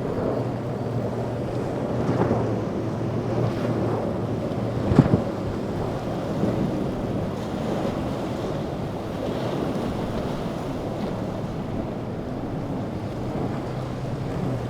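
Boat engines running under water and wave noise, with wind buffeting the microphone; a short, loud thump about five seconds in.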